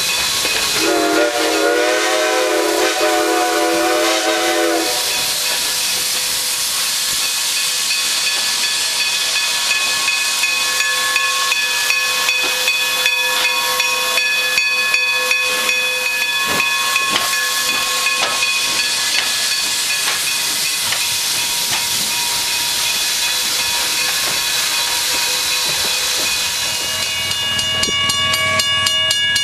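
Baldwin 2-8-0 steam locomotive's whistle sounding one long blast about a second in, lasting about four seconds, over a loud steady hiss of steam that carries on afterwards.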